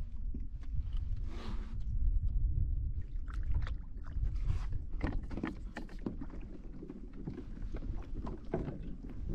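Low wind rumble on the microphone aboard a plastic kayak, with scattered knocks and light clatter as a landing net is handled against the boat.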